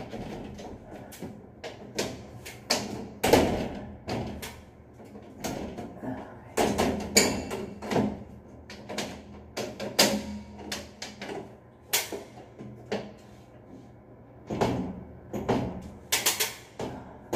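Louvred metal light-cover panel in an elevator ceiling being pushed and seated into its frame by hand: irregular knocks, clicks and rattles of metal slats against the frame. The cover is fiddly to fit.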